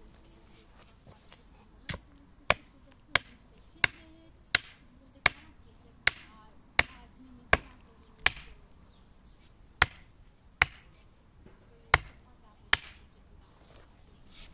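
A run of about fourteen sharp, evenly spaced knocks, roughly three every two seconds, with a brief pause partway through and stopping shortly before the end.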